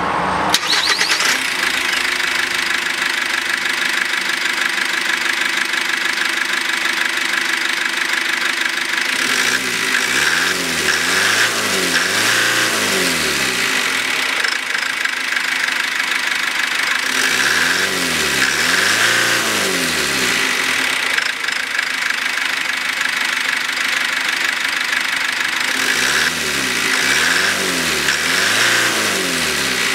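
GAZelle Next's four-cylinder common-rail turbo diesel (Cummins ISF2.8) idling steadily with the bonnet open. Three times it is revved in quick blips of the throttle, the engine note rising and falling a few times in a row before settling back to idle.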